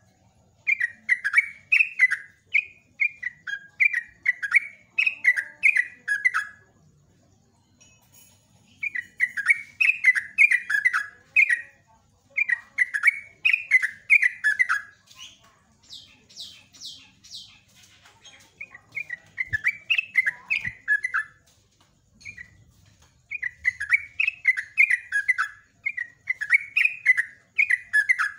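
Yellow-vented bulbul (trucuk) singing its long, fast-running 'ropel' song: bursts of quick, bubbling notes lasting several seconds, separated by short pauses. A brief run of higher, thinner notes comes in the middle.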